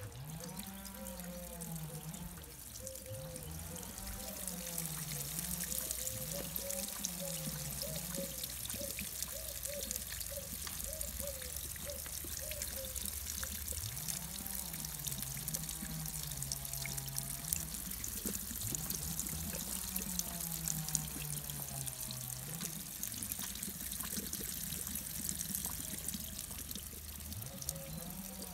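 A thin stream of water trickling steadily from an outdoor tap, with small splashes. Under it runs a low melodic tone that rises and falls every couple of seconds.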